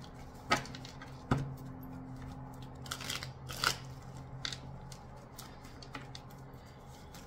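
Tarot and oracle cards being handled: a few sharp snaps and taps as cards are shuffled and laid down, over a steady low hum.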